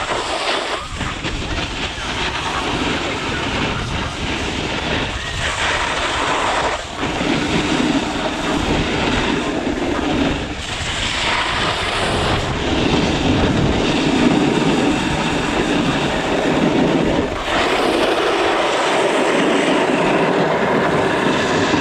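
Snowboard sliding and carving over packed snow, with wind rushing over the pole-mounted camera's microphone: a loud, steady roar and scrape.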